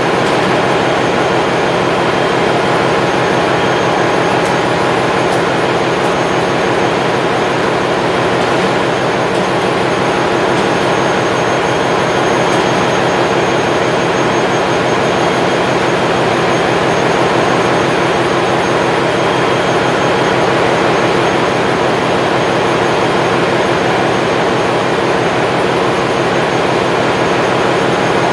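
Steady, loud machinery drone of a ship's engine room.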